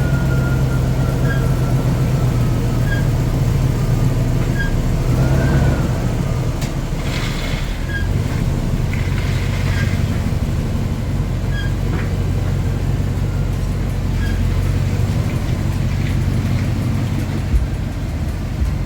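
First-generation Toyota Tundra pickup running, a steady low engine hum that changes pitch about six seconds in, with a faint short chirp repeating about every second and a half and two brief rushes of noise near the middle.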